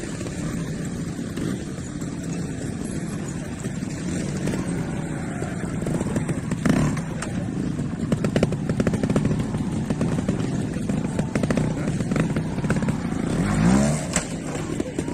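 Trials motorcycle engine running at low revs with a fast, even chug, then a sharp rev rising in pitch near the end as the bike is ridden up over the obstacles.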